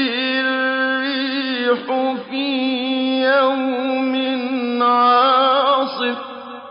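A male reciter chanting Quranic verses in a long, melodic drawn-out phrase, with wavering ornaments on the held notes. The voice stops about six seconds in and fades out in reverberation.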